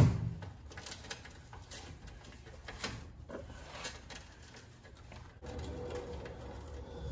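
Scattered metal clicks of a 10 mm socket wrench on a swivel extension working the oil pan bolts under a car, with a sharp knock at the start. A steady hum with a faint whine comes in about five seconds in.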